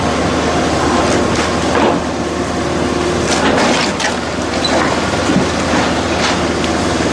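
A Kobelco SK160 excavator's engine runs under load while its bucket tears into the walls of an old wooden house, with timber and debris cracking and crunching. Sharp cracks stand out several times.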